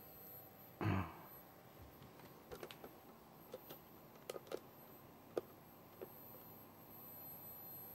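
A brief soft handling noise about a second in, then about a dozen light, irregular clicks over some three seconds from front-panel buttons being pressed on bench test equipment, a signal generator and oscilloscope.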